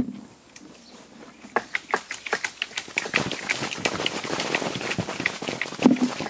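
Cherry plums shaken from the tree raining down onto plastic sheeting: a dense, irregular patter of quick taps over rustling leaves, starting about a second and a half in.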